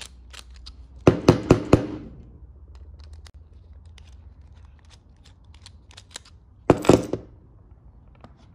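Small hard clicks and knocks from handling a metal lawn mower carburetor and a screwdriver: a quick run of four or five sharp clicks about a second in, another short clatter near seven seconds, and light ticks in between.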